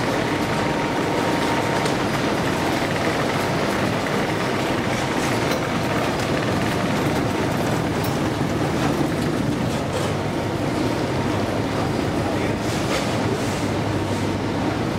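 Escalator running: a steady mechanical rumble with a light rhythmic clatter from the moving steps and drive.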